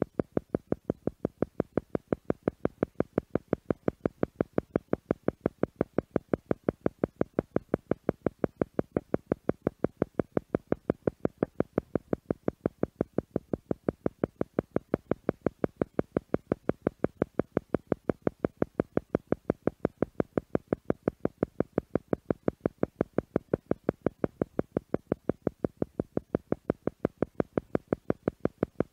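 Theta meditation sound: an electronic tone pulsing on and off evenly, several times a second, without change. It is an isochronic beat meant to slow the listener's brainwaves toward theta.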